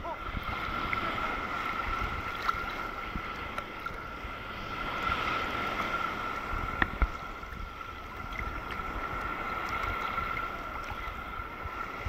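Choppy sea water sloshing and lapping around a camera held at the water's surface, swelling and easing as the waves pass, with a couple of sharp knocks about seven seconds in. A faint steady high whine runs under it.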